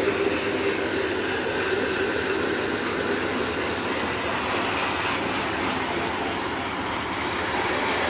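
Pressure washer running steadily, its high-pressure water jet spraying into the aluminium fins of an air-compressor combination cooler: a continuous rushing hiss of spray that does not let up.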